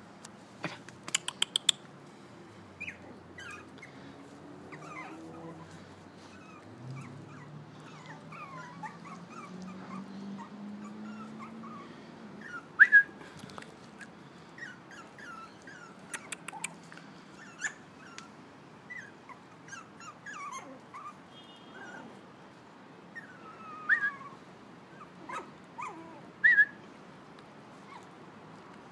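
Six-week-old Pomeranian puppies whimpering and yipping in short, high-pitched squeaks scattered throughout, with one louder yelp about halfway through. A few sharp clicks are also heard.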